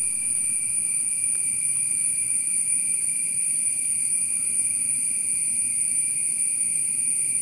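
Insect chorus, crickets or similar, in a garden: a steady, high-pitched chirring drone of several continuous tones that does not let up.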